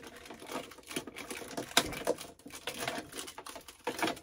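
Hands rummaging through packaging: crinkling and rustling with irregular clicks and knocks, the loudest knock about two seconds in.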